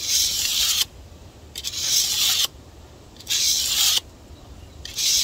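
Knife edge stroked over sandpaper wrapped tight around a flat wooden block. Four scraping strokes, about one every second and a half, alternating from one side of the blade to the other.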